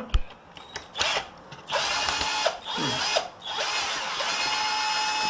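Cordless drill-driver running in reverse to back screws out of the easel's wooden frame: a brief spin about a second in, a second run of about a second, then a longer steady run starting about halfway through that continues past the end.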